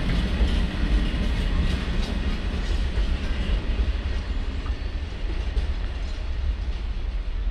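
Container freight train's wagons rolling past on the rails, a steady low rumble that fades slowly as the end of the train draws away.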